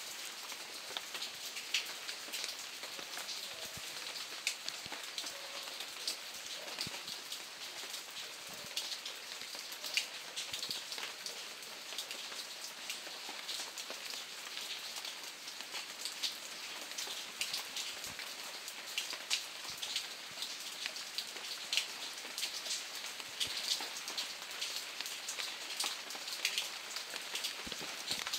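Steady rain falling, with many individual drops ticking sharply close by over a continuous hiss.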